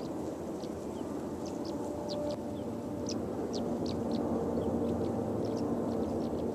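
Small birds chirping in short, high notes over the low, steady drone of distant EMD diesel locomotives, which grows a little louder, with a few steady engine tones coming up about two seconds in.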